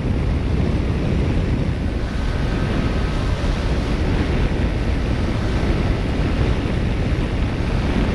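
Heavy wind rushing over the microphone of a Yamaha NMAX scooter held at full throttle on a top-speed run, with a faint steady whine from the engine under the wind; the new engine is being broken in hard.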